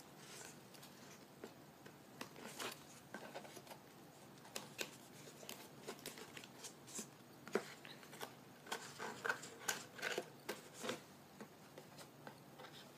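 Scissors cutting a cup: faint, irregular snips and clicks, coming thicker in the second half.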